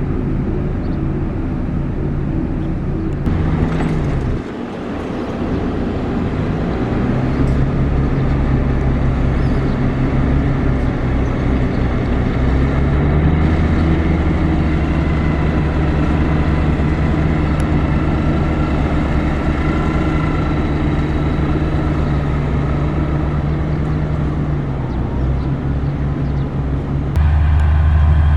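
Heavy construction machine's diesel engine running, its pitch dipping and rising with load. The sound changes abruptly about four seconds in and again near the end, where it becomes louder and lower.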